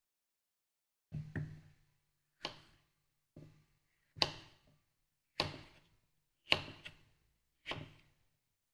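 Kitchen knife slicing through peeled chayote and striking a thick wooden chopping block: about eight sharp knocks, roughly one a second, with a quick double stroke just before the middle and another near the end.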